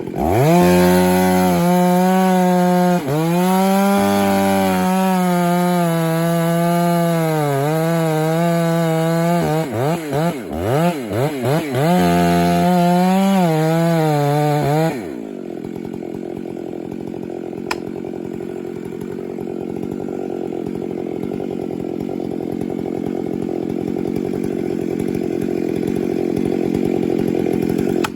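Chainsaw cutting into a standing tree while making a felling cut (a Dutchman). It runs at full throttle with its pitch sagging under load, and the throttle is worked on and off about ten seconds in. After about fifteen seconds it drops to a quieter, steady running sound that slowly builds.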